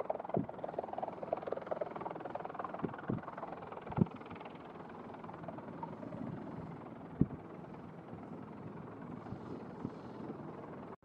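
CH-53E Super Stallion helicopter with three turboshaft engines, running on the ground with its rotors turning: a steady rotor and turbine noise, broken by a few short low thumps.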